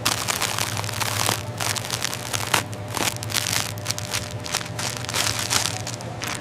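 Dense, irregular crisp crunching and crackling, many short sharp noises in quick succession, over a steady low hum.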